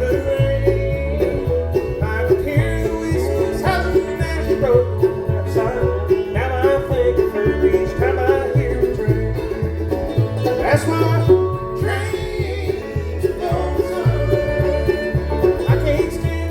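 Bluegrass band playing live, with banjo rolls over guitar and a steady walking bass line, in an instrumental passage of the song.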